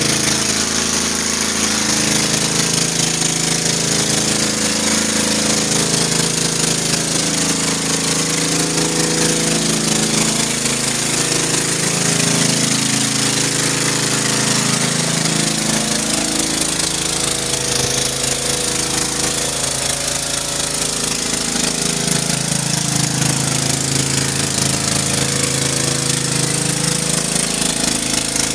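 Pressure washer running steadily, with the loud hiss of a 15-inch surface cleaner spraying water onto concrete.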